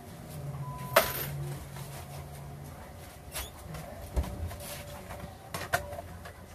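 Scattered clicks and knocks of small objects being handled and set down, the loudest a sharp click about a second in.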